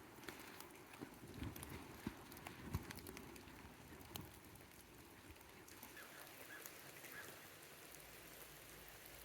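Faint light rain: scattered drops ticking irregularly on tent fabric, with a few soft thumps in the first few seconds.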